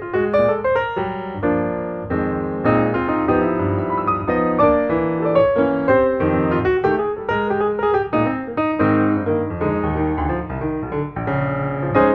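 Background piano music, many notes in a flowing run.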